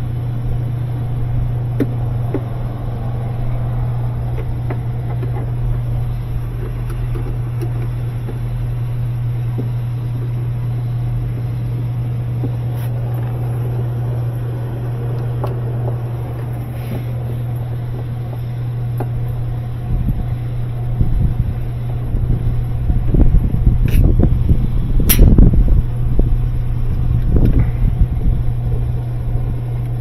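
A steady low mechanical hum, with clicks, knocks and rattles of hand-tool work on the washer's parts starting about two-thirds of the way in, including one sharp click near the end.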